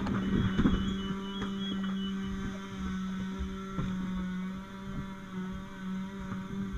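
A machine's steady hum, which rises in pitch just before and then holds level, with a few light knocks and scrapes of debris being pulled by a pike pole.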